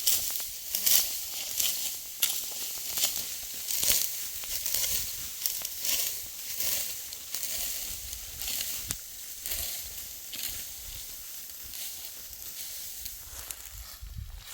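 Dry wheat stalks rustling and crunching in a string of irregular crisp swishes, louder in the first half and softer toward the end.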